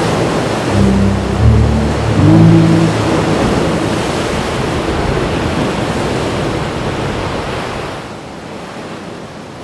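Heavy ocean surf: a steady rush of breaking waves that drops away about eight seconds in. During the first few seconds a low, steady motor hum sits underneath it.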